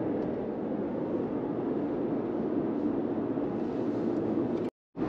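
Steady road and engine noise heard inside a moving car's cabin, breaking off for a moment near the end.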